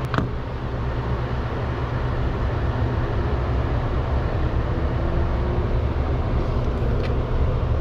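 A steady, machine-like low rumble with an even hiss above it, unbroken throughout, with a single sharp click just after the start.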